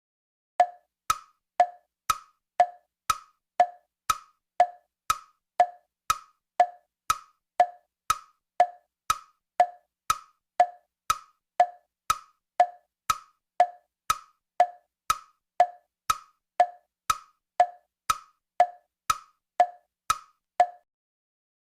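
Steady ticking sound effect: sharp, woody clicks at an even pace of about two a second, like a clock's tick-tock, stopping just before the end.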